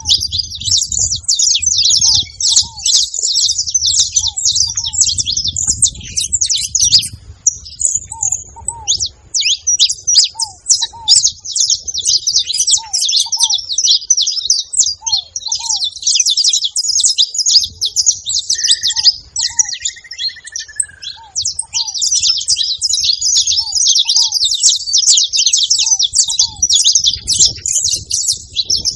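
Several saffron finches singing and chattering together in a dense, nearly continuous stream of rapid high notes. Beneath them a softer, lower two-note call repeats every second or two.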